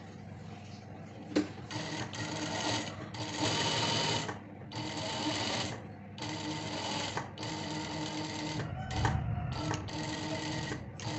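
Industrial single-needle lockstitch sewing machine stitching fabric in a series of short runs, stopping and starting about every second.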